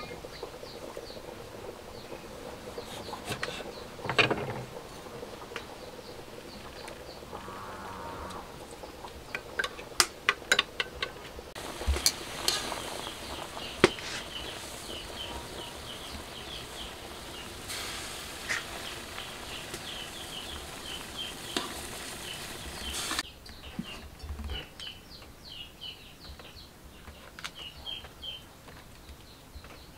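Pieces of pork frying in hot oil in a wok: a steady sizzle for about ten seconds in the middle, cutting off suddenly, with sharp clicks and clinks of a metal utensil against the pan. Small high chirps repeat in the background throughout.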